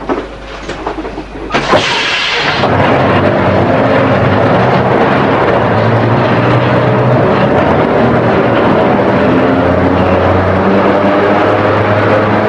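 Lisbon 'Caixote' tram car 292 climbing a steep street under power. A few clicks at first, a short loud hiss about two seconds in, then the steady whine and rumble of the electric tram's motors and running gear.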